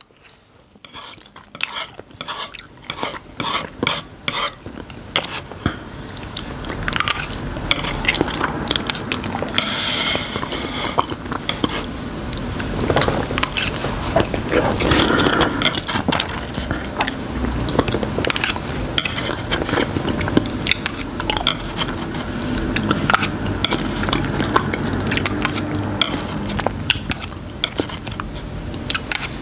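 Close-up chewing and mouth sounds of someone eating instant black bean noodles (Chapagetti), with many small clicks of chopsticks against a wooden tray. The first few seconds are quieter, and the eating grows louder after about six seconds.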